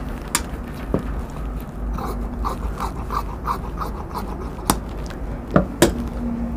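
Tailor's shears cutting straight through cotton shirt cloth in a run of quick, even snips, about three a second, followed by a few sharp knocks near the end as the shears are put down on the cutting table.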